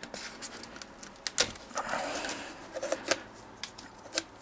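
Plastic cap and seal of a motor-oil canister being worked open by hand: a handful of sharp separate clicks spread over a few seconds, with scratchy rustling of the seal in between.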